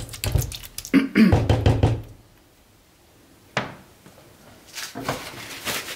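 Kitchen handling noises from a mixing bowl and utensils after the chicken has been stirred into its marinade: dull thumps and rustling for about two seconds, then one sharp knock about three and a half seconds in, then lighter rustling near the end.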